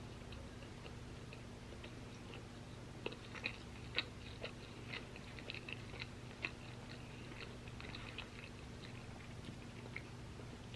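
A person chewing crunchy waffle fries close to the microphone: a run of small, crisp crunches, thickest from about three seconds in until near the end, over a faint steady low hum.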